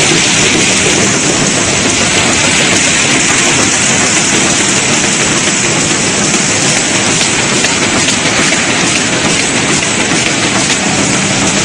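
Corrugated box folding and forming machine running at production speed: a loud, steady rushing hiss from its belts and rollers, with a faint steady hum underneath.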